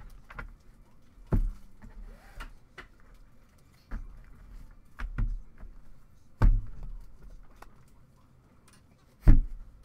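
Handling a thick stack of trading cards on a table: about six sharp knocks spaced irregularly, the loudest near the end, with light rustling of the cards between them.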